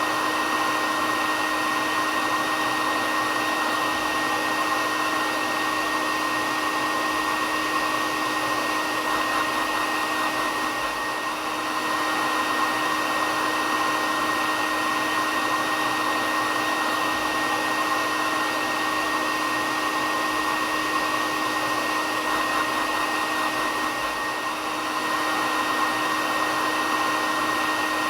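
Hair dryer running steadily: a constant blowing rush with a steady motor whine, dipping slightly in level twice.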